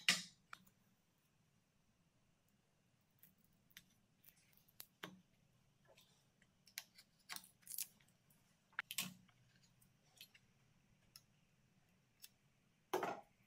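Quiet hand work on a thin wooden strip: adhesive tape pulled off its roll and pressed down along the strip, with scattered short rips and ticks, then a utility knife cutting the tape. A short scraping stroke near the end is the loudest.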